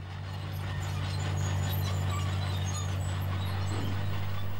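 Diesel engine of a Caterpillar crawler bulldozer running with a steady low drone, swelling up over the first second.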